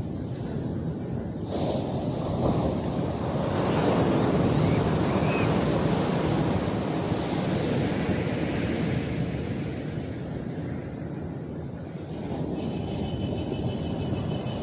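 Sea waves breaking and washing up on the shore, with wind buffeting the microphone. The surf swells about two seconds in, is loudest around four to five seconds in, then eases before building again near the end.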